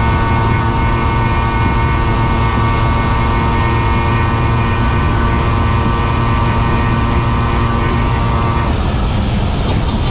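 Vespa SS90 two-stroke single-cylinder engine running hard at steady high revs under way. Near the end the steady engine note breaks off.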